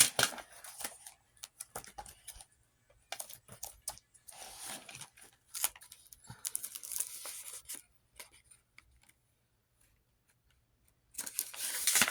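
Paper rustling and handling in short bursts, then near the end a louder tearing as the paper box that holds her money rips.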